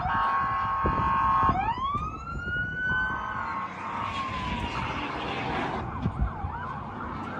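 Police car sirens: a steady tone, then a wail that rises about a second and a half in and slowly falls, switching to a fast yelp near the end.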